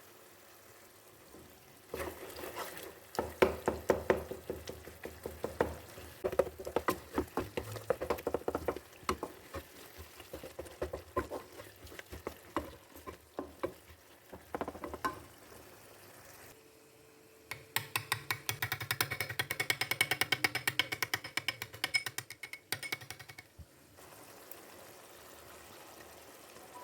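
A spoon knocking and scraping against a cooking pot as food is stirred, in irregular strokes for about fourteen seconds. After a short pause comes a faster, even run of rapid clicks for about six seconds.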